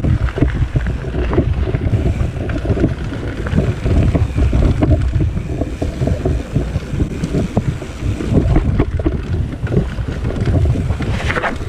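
Wind buffeting the microphone over the rumble of mountain bike tyres rolling on gravel and dirt singletrack, with constant small rattles and knocks from the bike over the bumps.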